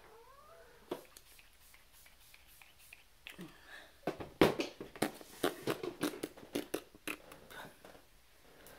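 Small clicks and taps of makeup containers and brushes being handled, a few at first and then a quick run of them through the middle.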